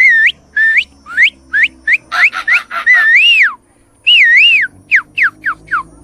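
A man whistling a fast string of sliding calls, imitating an animal or bird. There are about a dozen short rising or falling notes, two longer wavering ones in the middle, and four quick falling ones near the end.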